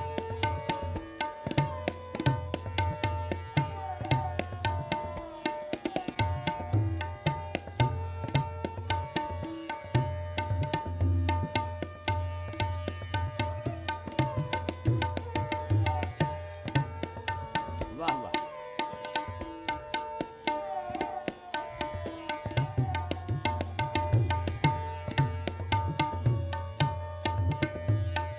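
Tabla playing fast: dense crisp strokes on the right-hand drum with deep left-hand bass strokes, which drop out twice for a couple of seconds. Underneath, a sarangi repeats a lehra melody with sliding notes.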